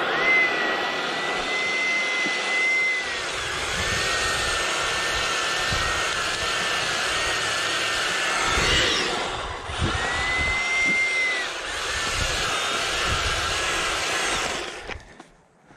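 EGO battery power head with its bristle brush attachment running: a steady high electric whine, wavering and dipping in pitch as the spinning bristles sweep sand and grit off the pavement, over a hiss of flying debris. The motor winds down and stops near the end.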